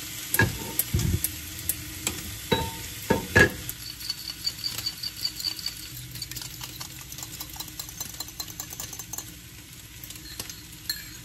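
Turkey bacon sizzling in a frying pan while a fork whisks eggs in a ceramic bowl with quick, light clinking taps. A few louder knocks and clatters come in the first few seconds.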